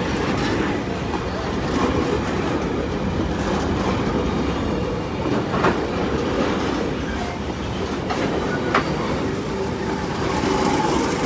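Goods train rolling past: a steady rumble of wheels on track with occasional sharp knocks as wheels cross rail joints.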